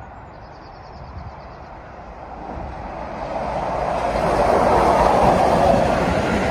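A locomotive-hauled railtour, led by Class 86 electric locomotive 86259 with Class 47 diesel 47746 behind, approaches and runs through the station. The rumble of wheels on rail builds steadily, is loudest about five seconds in as the locomotives pass close by, then begins to ease.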